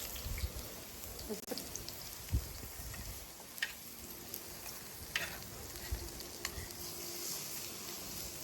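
Cooking over an open wood fire: a steady sizzling hiss broken by scattered sharp pops and clicks.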